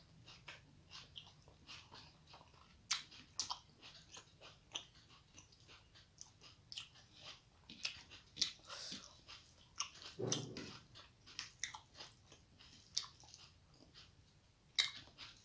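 Close-up eating sounds: chewing and lip-smacking on mouthfuls of rice and curry eaten by hand, a run of soft, irregular wet clicks. A brief, louder low mouth sound comes about ten seconds in.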